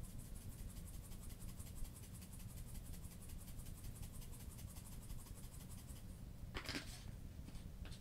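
Dried basil shaken out of a shaker-top spice jar: a faint, fast, even rattle of taps that stops about six seconds in. A short, louder rustle follows about a second later.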